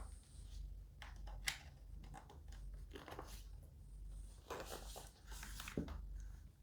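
Faint rustling and light plastic clicks of handling as the HP K300 keyboard's cable is plugged in, over a low steady hum.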